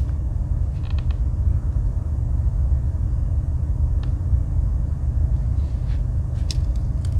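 Steady low background rumble, with a few faint light clicks about a second in, about four seconds in and near the end, typical of a large Wenger Swiss Army knife and its scale tools being handled on a table.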